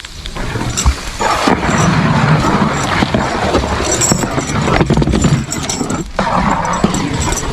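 Belgian draft horse walking in harness, with a few scattered hoof thuds over a steady rushing noise that swells about a second in and dips briefly near the end.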